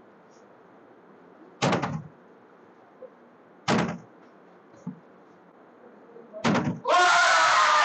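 Three hollow knocks about two seconds apart as a flipped plastic water bottle lands on the table, followed near the end by a loud second-long noisy burst with falling tones.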